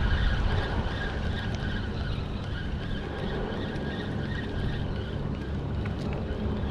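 Bramble Bush Bay chain ferry running past: a steady low engine hum with a faint high whine over it, and some wind noise.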